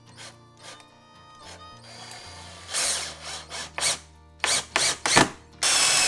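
Power drill driving screws into wood in a run of short bursts, the last one a little longer.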